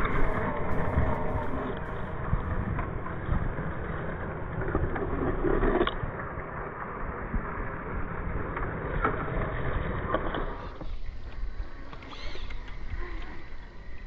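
Radio-controlled scale trail truck crawling through snow: the electric motor and geared drivetrain whirring under load with the tyres working the snow. About ten seconds in the sound changes abruptly to a quieter stretch.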